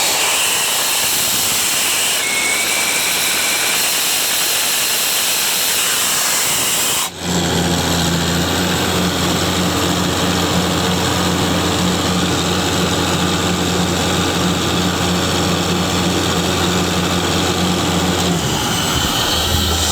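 Ingersoll 750 air compressor running. For the first seven seconds there is mostly a loud high hiss. After a brief break, a steady low engine drone runs under the hiss.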